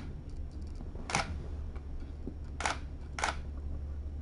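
Nikon DSLR shutter firing four times, sharp single clicks: one right at the start, one about a second in, then two close together near the end.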